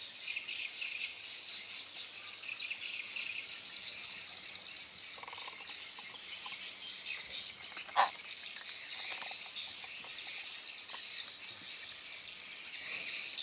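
A dense chorus of insects chirring, high-pitched and steady, with one sharp click about eight seconds in.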